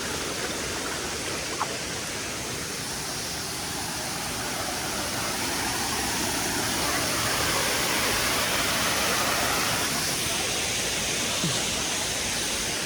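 Steady rush of flowing water from a stream running toward a waterfall drop, an even noise that swells a little midway, with a single small click about one and a half seconds in.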